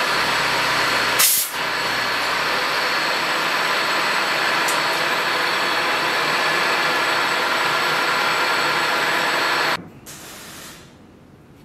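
Milling machine running steadily while an end mill cuts a slot through a small metal block for a knife guard, with a short, louder hiss about a second in. The machine noise cuts off abruptly near the end.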